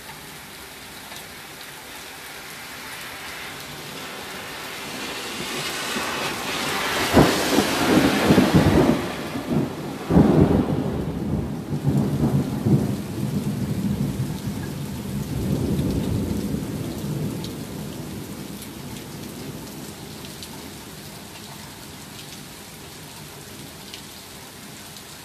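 Steady rain with a thunderclap: a rumble swells, cracks sharply twice, then rolls on for several seconds and fades away, leaving the steady hiss of the rain.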